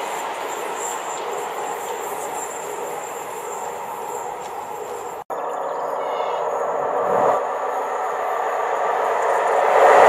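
Freight train of covered wagons rolling away, wheels clattering on the rails with a thin high squeal, fading. After an abrupt break about halfway, a ČD class 362 electric locomotive hauling passenger coaches approaches, its noise growing and loudest at the end.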